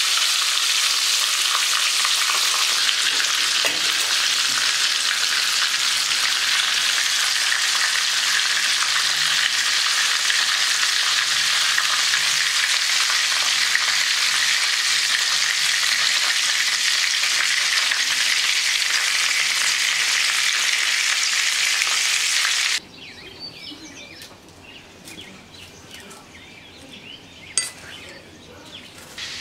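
Hot oil sizzling steadily as battered, meat-stuffed Dungan chili peppers fry in a pan. The sizzle cuts off abruptly about three-quarters of the way through. Quiet room sound follows, with one sharp click near the end.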